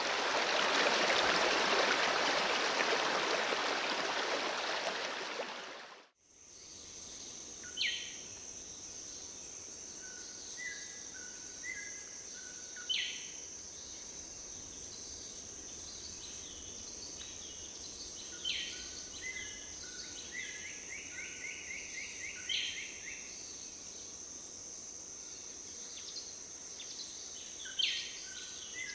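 Rushing river water for about the first six seconds, fading out; then rainforest ambience: a steady high insect drone with birds calling, about five sharp falling calls spread through, short lower chirps, and a rapid trill near the middle.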